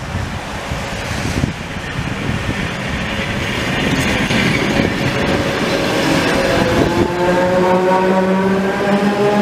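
Latvian Railways electric multiple unit running past along a station platform, its rumble building as it comes close. A whine of several tones joins in about seven seconds in.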